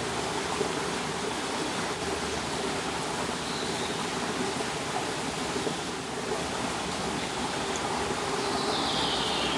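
Steady rushing of running water. A thin, high, slightly falling tone comes in near the end.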